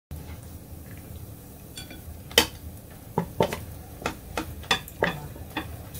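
A utensil clattering against a wok and plate as braised chicken is scooped out to serve: one sharp clack about two and a half seconds in, then a run of lighter knocks and scrapes through the second half.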